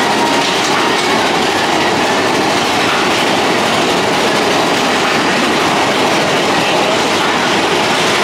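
Big Thunder Mountain Railroad mine-train roller coaster cars clattering and rattling along the track in a steady, dense noise.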